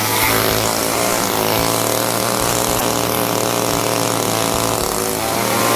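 Two-stroke chainsaw engine running steadily, its pitch shifting slightly now and then.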